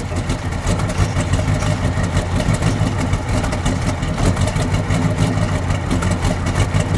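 A 1971 Dodge Charger Super Bee's factory 426 Hemi V8 idling steadily, its exhaust pulsing from the twin tailpipes.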